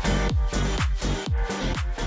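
Background electronic dance music with a steady kick-drum beat, about four beats a second.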